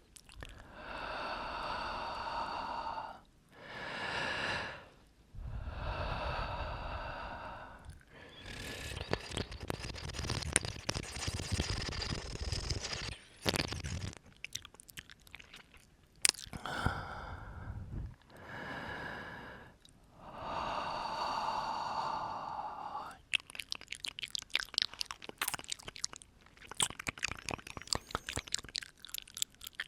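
Close-up breathing into the microphone: about five long, airy exhalations of one to three seconds each, alternating with wet mouth sounds. Near the end comes a rapid run of tongue clicks and lip smacks.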